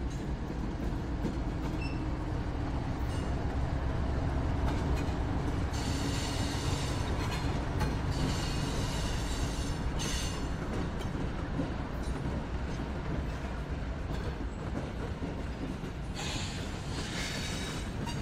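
CSX freight train passing close by: the diesel locomotives' engines rumble past, then the freight cars roll by. Brief high-pitched wheel squeals come about six seconds in, around ten seconds, and again near the end.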